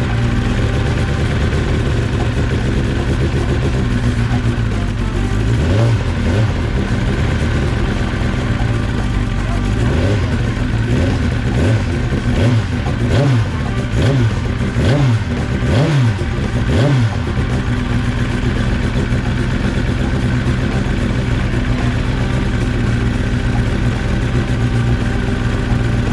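Racing motorcycle engines running, their pitch rising and falling several times in the middle stretch as the engines are revved.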